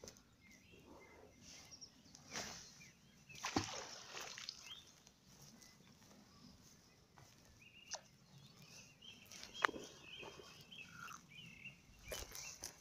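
Scattered splashes and sharp knocks from a fishing magnet on its rope being worked through river water, with a few short bird chirps partway through.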